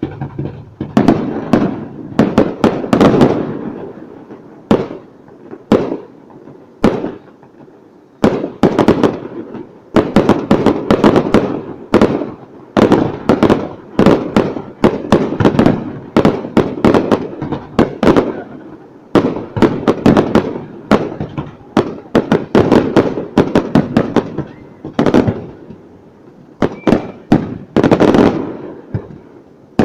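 Fireworks display: rapid volleys of sharp bangs and crackles in dense clusters, with a brief lull of scattered single bangs a few seconds in.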